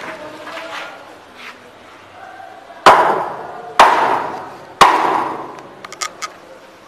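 Three loud hammer blows on metal about a second apart, each ringing out long after the strike, followed by a few lighter taps near the end.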